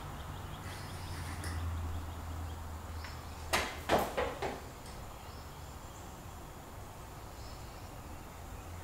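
A few sharp clacks and knocks close together about three and a half seconds in, from a person working out under a barbell racked in a power rack, over a low steady hum.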